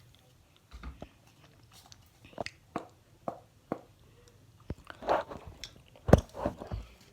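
Slime mixture being stirred and worked in a bowl: a string of irregular short squelches and clicks, loudest about six seconds in.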